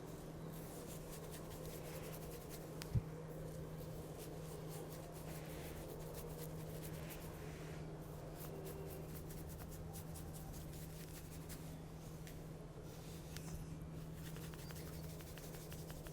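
Hands rubbing and working hair against the scalp in a hair-cracking head massage: a continuous run of dry, scratchy little crackles. There is one sharp knock about three seconds in, and a steady low hum underneath.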